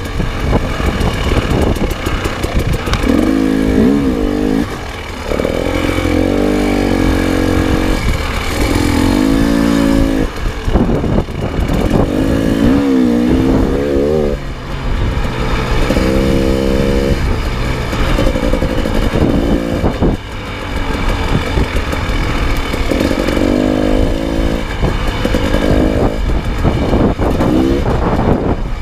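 Dirt bike engine revving up and backing off again and again while being ridden, its pitch rising and falling with the throttle through the gears, with brief drops in sound as the throttle is closed.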